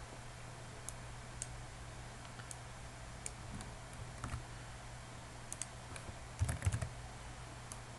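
Faint, scattered clicks of a computer keyboard and mouse, a handful of keystrokes and clicks with a quick cluster a little after six seconds in, over a low steady hum.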